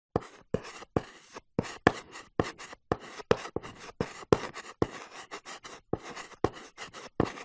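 Chalk writing on a blackboard: a quick run of short chalk strokes and taps, several a second.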